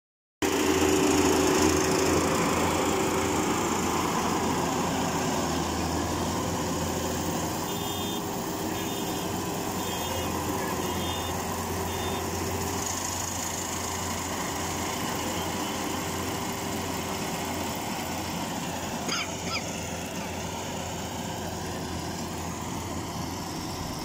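Compact tracked rice combine harvester's engine running steadily as the machine cuts ripe paddy, loudest at first and slowly fading as it moves away. About a third of the way in, five short high tones sound about a second apart.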